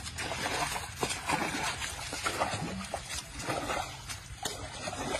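Water splashing and trickling in irregular bursts as a baby elephant plays with its head and trunk in a water trough.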